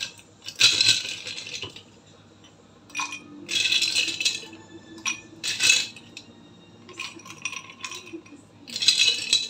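Ice cubes rattling and clinking against a glass and a spoon as they are scooped out and dropped into a blender jug, in several short bursts of clatter.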